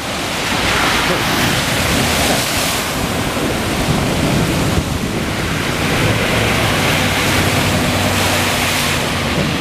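Cars driving through a flooded street in heavy rain, their tyres throwing water with a continuous rushing splash. About six seconds in, a pickup truck's engine hum comes in as it passes close, sending up a big sheet of spray.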